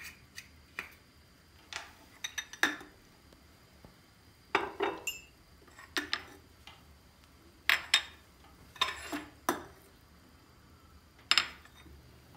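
Irregular clinks and knocks of kitchen utensils against dishes and cookware, about a dozen short sharp strikes scattered through the stretch, with quiet in between.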